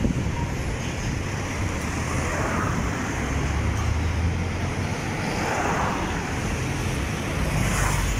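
Road traffic noise: a steady rumble of passing vehicles, swelling a few times as louder ones go by.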